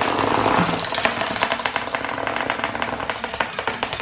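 Small wind-up clockwork robot toy running after being wound, its spring mechanism and legs making a rapid, continuous clatter on a wooden tabletop that slowly gets quieter as the spring runs down.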